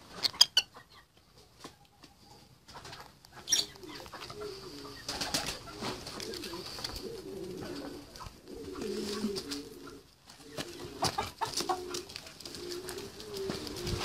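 Low, wavering bird calls repeating over and over from the birds in a poultry pen, cooing or murmuring in tone. A few sharp clicks come near the start, about three and a half seconds in, and around eleven seconds.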